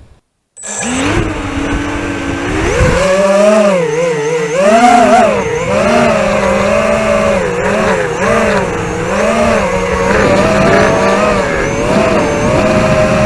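ZMR250 racing quadcopter's DYS 2204 brushless motors and tri-blade props whining, heard from its onboard camera, the pitch rising and falling with the throttle. The sound cuts in suddenly about half a second in, after a brief silence.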